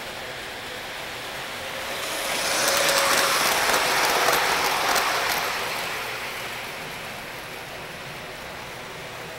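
O-scale model passenger train, lighted silver Amfleet-style cars, running past on three-rail track. The rolling of its wheels grows louder, peaks with a few faint clicks, and fades away as it passes.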